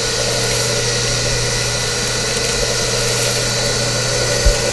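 Small portable concrete mixer running steadily, its drum turning a batch of wet concrete mix, with a steady motor hum. A single dull thump near the end.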